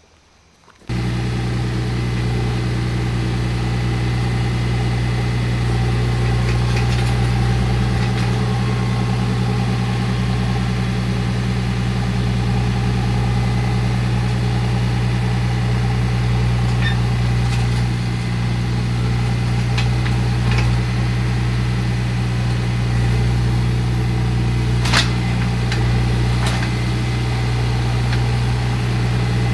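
John Deere 4044M compact tractor's diesel engine running at a steady speed. It comes in suddenly about a second in, with a few light knocks over it.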